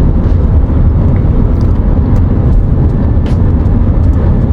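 A car driving at highway speed: a loud, steady low rumble of road and engine noise.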